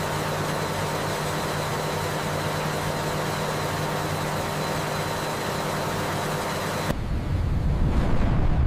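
Industrial pipeline noise: a steady rushing hiss of liquid flowing through a pipe over a low mechanical hum. About seven seconds in it changes abruptly to a louder, deeper rumble of a furnace flame blast.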